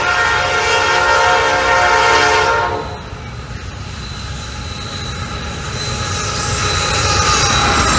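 Norfolk Southern diesel freight locomotive's air horn blowing a steady chord, cutting off about three seconds in. The rumble of the locomotives and wheels on the rails then builds as the lead units close in and pass, with a thin high whine over it.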